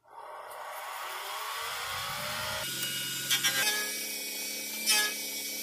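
Pen lathe motor starting and spinning up to full speed, its whine rising over the first couple of seconds and then holding steady. A little over three seconds in, a hand-held turning tool starts cutting the spinning cast-resin pen blanks, with loud scraping surges as it rounds them.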